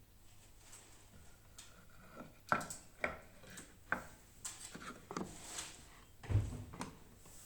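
Antique coffee grinder being handled: a series of separate wooden knocks and clicks about a second apart, the loudest a heavier thud near the end.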